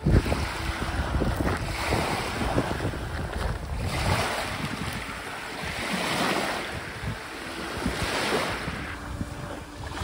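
Small waves lapping and washing up onto a pebbly beach, swelling about every two seconds, with wind buffeting the microphone.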